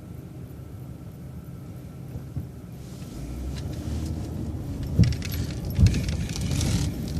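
Transit bus running at low idle, then pulling away: the engine and road noise rise about three seconds in, with interior rattling and two loud thumps a little under a second apart near the end.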